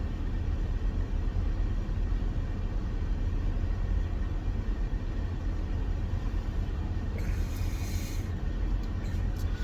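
Steady low rumble of a car heard from inside the cabin, with a brief hiss about seven seconds in.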